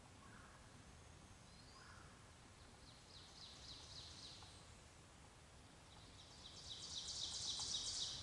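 A small songbird sings a high trill of rapidly repeated notes, about six a second, twice. The second trill, near the end, is louder and longer than the first, over the quiet of the woods.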